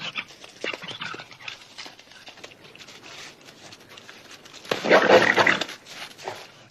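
Animal vocal sound effect made from fox, tiger cub and wolverine recordings to stand in for a crocodile: soft, irregular breathy rasps, then a loud harsh call about five seconds in, and a shorter one near the end.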